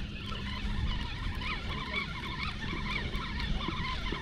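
Wind rumbling on the microphone, with faint, short, high chirps scattered throughout.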